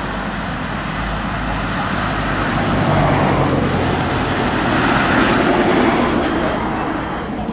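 Road traffic on the road beside the track: a steady car noise, with a car driving past that is loudest about five to six seconds in.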